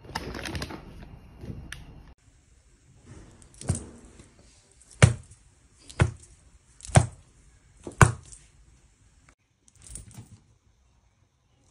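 A short stretch of rustling, handling noise, then a series of sharp knocks about one a second, with a fainter one near the end.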